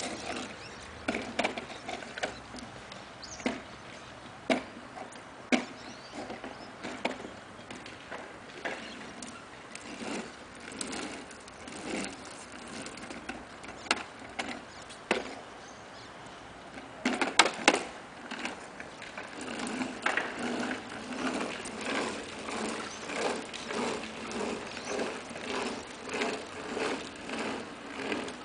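Hard plastic wheels of a child's ride-on toy rolling and rattling on a concrete slab, with irregular knocks and clatters and a cluster of louder knocks a little past halfway. Later the sound settles into a regular pulsing about twice a second as the toy is pushed along.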